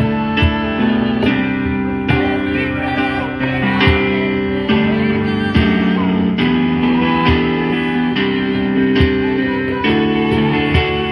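Guitar music: strummed chords held under a higher melodic line, with an even, unhurried rhythm.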